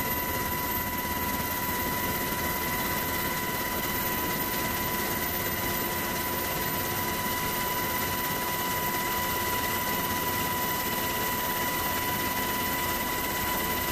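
Steady helicopter noise as heard aboard the aircraft filming from above: an even roar with a constant high whine.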